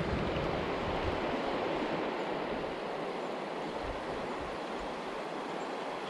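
Steady rush of flowing creek water, an even noise with no separate events.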